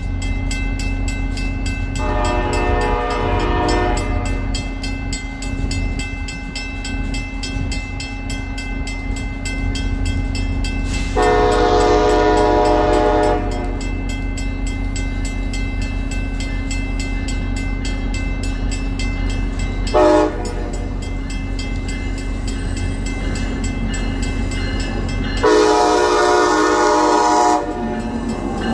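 Amtrak ACS-64 electric locomotive's air horn sounding the grade-crossing signal as the train approaches: two long blasts, one short, then a final long blast. A steady low rumble runs underneath.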